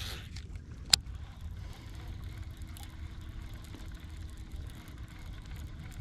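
Boat's outboard motor running low and steady, with a single sharp click about a second in.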